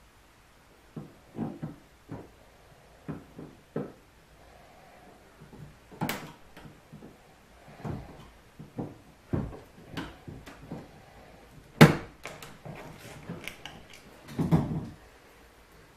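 Irregular knocks, clicks and scrapes of hard plastic kayak parts being handled and worked on by hand, with a sharp knock near the middle and a duller thud near the end.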